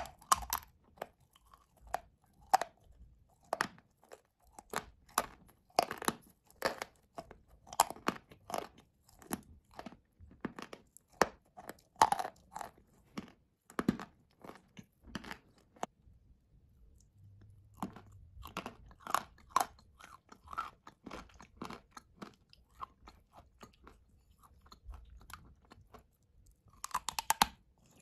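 A person chewing and crunching blue clay paste made from Ural and Uzbek blue clays: many sharp, irregular crunches and mouth clicks. They pause for a second or so around the middle, and a quick run of crunches comes near the end.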